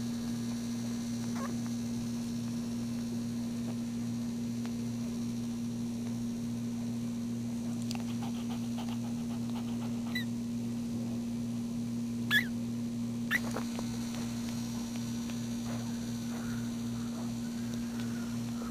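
A few brief, high squeaks from a newborn puppy, one about ten seconds in and a sharper pair two to three seconds later, over a steady low electrical hum.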